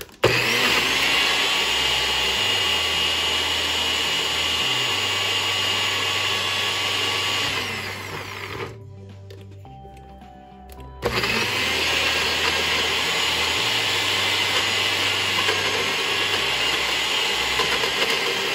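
Nutribullet personal blender's motor running at full speed, chopping raw onion, scallion, peppers and herbs in a little olive oil. It runs for about eight seconds, winds down, and starts again about three seconds later for a second long run.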